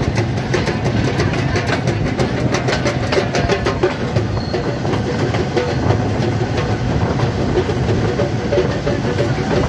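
Passenger train running across a steel-girder bridge: wheels rattling and clattering on the rails, heard from an open carriage doorway.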